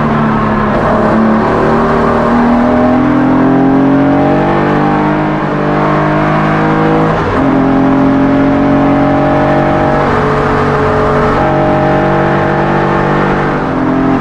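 Porsche 964's 3.8-litre air-cooled flat-six with individual throttle bodies accelerating hard, its pitch climbing steadily. About seven seconds in it drops sharply at an upshift and climbs again, with a short dip near the end.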